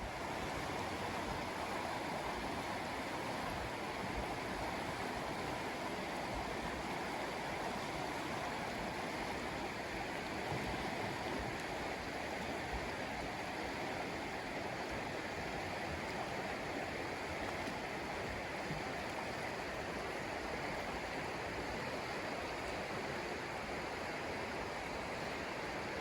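A forest river flowing, a steady, even rush of running water.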